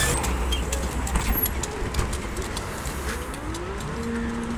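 Belkommunmash BKM 321 trolleybus starting to move off, its electric traction drive giving a whine that rises in pitch about three seconds in and then holds steady, over a low rumble of street noise.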